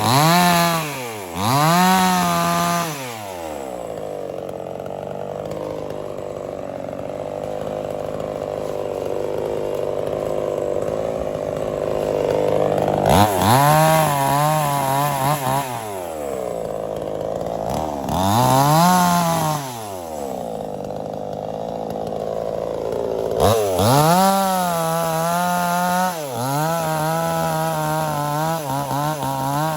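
Small two-stroke chainsaw revving up and falling back in short bursts, with long steadier stretches at a lower pitch where it is cutting through wood under load. The revving turns uneven near the end.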